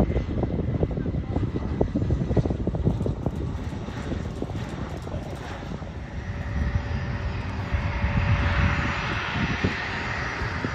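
Jet noise from the A-10C Thunderbolt II's twin TF34 turbofan engines: a low rumble throughout, with a higher rushing whine that swells over the second half.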